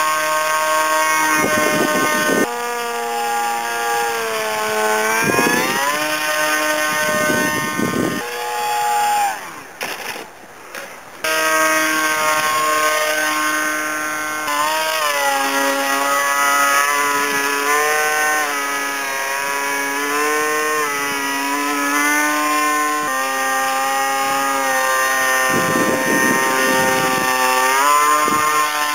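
RC model airplane's motor and propeller in flight, its pitch rising and falling as the throttle changes, with a brief drop-out about ten seconds in. Short gusts of wind noise hit the microphone now and then.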